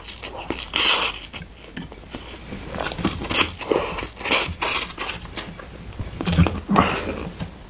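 Close-miked eating: irregular biting and chewing sounds mixed with sharp clicks of utensils against a dish.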